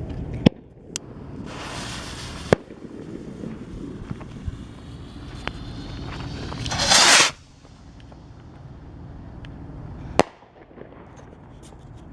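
Phantom Happy Rockets firework rockets launching: hissing whooshes, the loudest about seven seconds in, with three sharp bangs and a few smaller pops.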